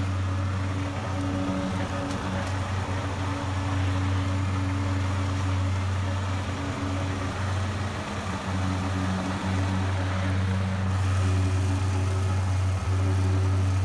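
Gas-powered walk-behind lawn mower engine running at a steady speed while cutting grass, a constant low hum.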